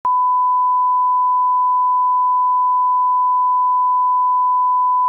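Steady 1 kHz line-up tone, one pure unwavering pitch held at a constant level. It is the reference test tone that runs with broadcast colour bars for setting audio levels.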